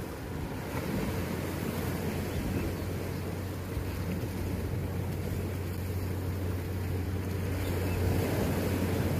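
Sea surf washing against a rocky shoreline, with wind buffeting the microphone as a steady low rumble.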